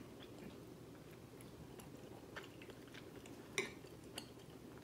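A few faint clicks of metal chopsticks tapping a ceramic plate while picking up rice cakes, the clearest about three and a half seconds in.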